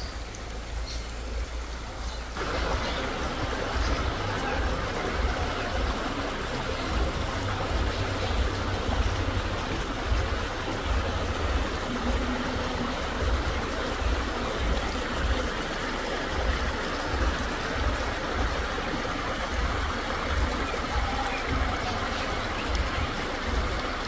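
Shallow rocky stream trickling and splashing over stones, a steady rush of water that gets louder about two seconds in, over a low fluctuating rumble.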